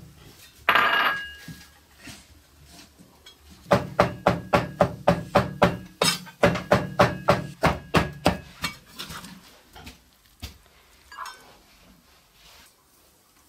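Cleaver chopping pork into mince on a thick wooden chopping block: two runs of quick, even strikes, about five a second, each with a dull thud. A brief ringing clink comes about a second in, and a few lighter knocks follow the chopping.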